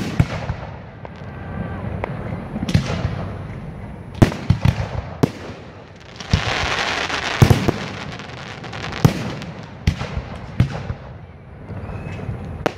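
Aerial fireworks bursting overhead with a series of sharp booms, including a quick run of several bangs about four seconds in. There is a stretch of dense hiss around six to eight seconds.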